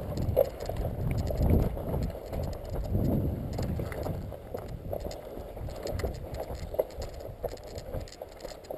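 Footsteps and rustling as a player moves through dry scrub and undergrowth, heard as irregular scuffing and rumbling with small clicks from a body-worn action camera.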